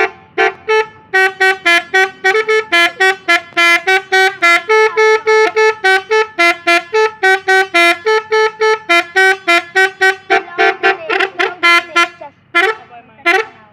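Telolet multi-tone musical horn playing a tune as a fast run of short toots, about four a second, hopping mostly between two notes, with a short break about twelve seconds in.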